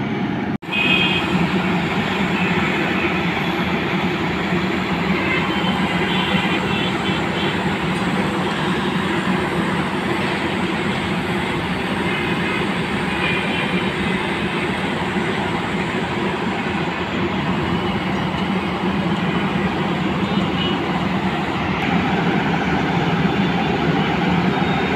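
Steady engine drone of a Holland road-rail mobile rail-welding truck running on the track.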